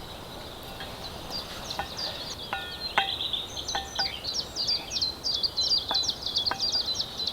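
Songbirds singing: rapid, repeated high chirping notes that grow busier toward the end, with a few faint clicks in the middle.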